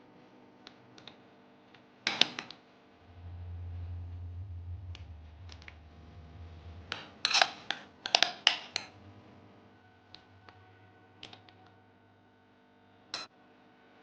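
Scattered sharp clicks and taps of something being handled. There is a loud cluster about two seconds in, a quick run of them around seven to nine seconds, and one more near the end. A low hum sounds for a few seconds in the middle.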